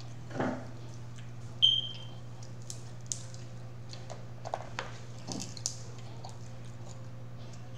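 Dungeness crab shell being cracked and eaten by hand: scattered crunches, clicks and wet sucking sounds. A short high squeak comes about two seconds in, over a steady low hum.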